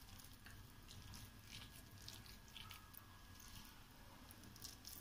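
Near silence, with faint, irregular soft squishes and ticks from hands pressing and rolling wet cabbage kofta mixture into a ball.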